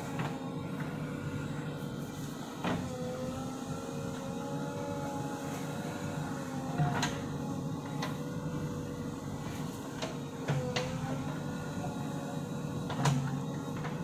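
JCB backhoe loader's diesel engine running steadily under hydraulic load, its pitch wavering slightly as the backhoe arm works, with four sharp knocks as the bucket digs into the earth bank.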